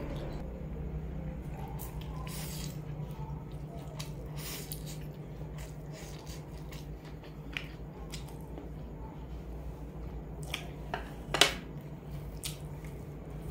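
Close-up mouth sounds of a person eating black bean sauce noodles: wet chewing and slurping with scattered short smacks, one louder than the rest about eleven seconds in, over a steady low hum.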